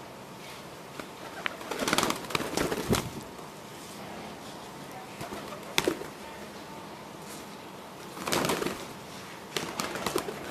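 Domestic pigeons cooing, with several loud sudden bursts of noise about two seconds in and again near the end.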